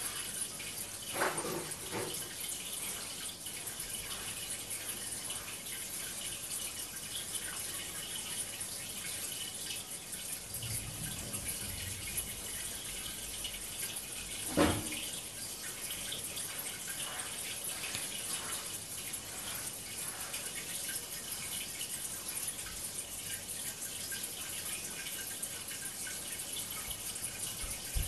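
Steady water sound of an aquarium video playing through a television's speakers, with a few brief knocks, the loudest about fifteen seconds in.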